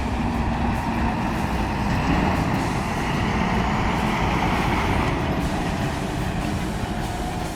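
Heavy truck engine running steadily under load, mixed with road and tyre noise.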